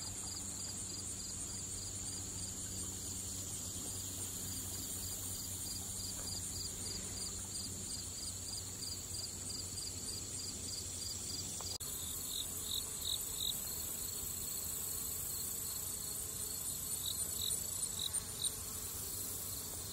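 Insects calling: a steady high trill with a rhythmic chirping beneath it, about three chirps a second. About twelve seconds in, the chirping changes to short groups of three or four louder pulses.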